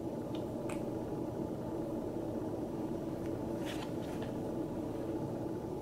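Steady hum of a room air conditioner running, with a few faint short ticks over it.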